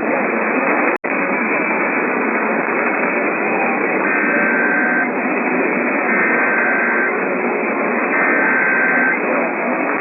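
Radio static: a steady hiss from a receiver with no signal, cut off sharply above the voice range. It drops out briefly about a second in, and faint tones, each about a second long, come and go three times in the second half.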